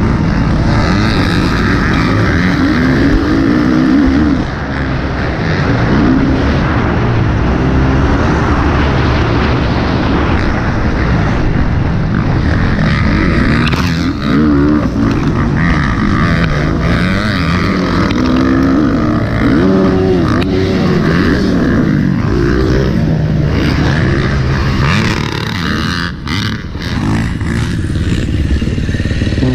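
Husqvarna FC 350's single-cylinder four-stroke engine heard from the rider's helmet, revving up and falling off again and again through the turns while racing. A few sharp knocks cut through about 26 seconds in.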